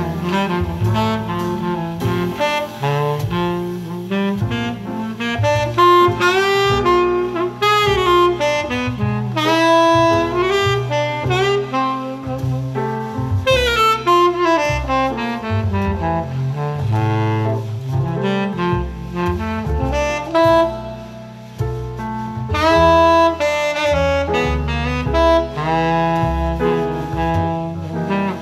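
Moody jazz tenor saxophone melody with low accompaniment, played back through homemade loudspeakers.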